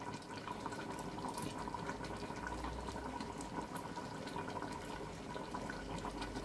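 A pot of lamb and potato gravy simmering on the stove, a steady run of small bubbling pops and crackles, with a faint steady tone under it.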